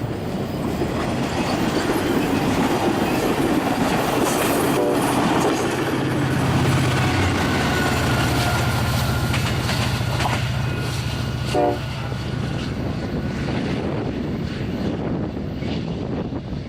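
Amtrak Capitol Corridor passenger train passing, its diesel locomotive's low engine hum loudest in the middle, about six to twelve seconds in, over steady wheel-on-rail noise and wind on the microphone.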